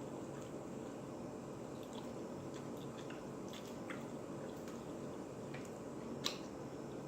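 Close-miked wet chewing with scattered small mouth clicks and one sharper click near the end, over a steady background hum.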